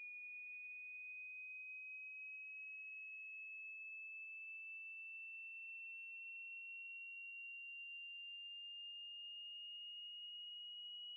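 A pure, high-pitched electronic sine tone from a frequency generator, steady in loudness and gliding slowly upward in pitch. It is part of a hearing-test sweep from 20 Hz to 5000 Hz.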